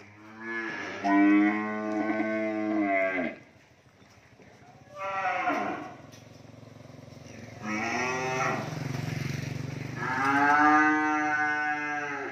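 Cattle mooing: four moos, the first and last each about three seconds long, with a short one between them.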